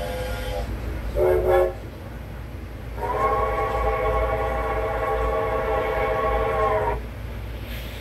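Steam locomotive chime whistle played back through a TV speaker: two short toots, then one long steady blast of about four seconds that sags slightly in pitch as it cuts off.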